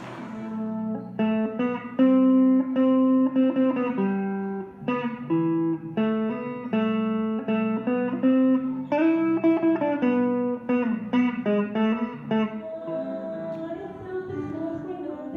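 Electric guitar through a small amp playing a melody in single picked notes, each note starting sharply and ringing briefly. The playing softens over the last couple of seconds.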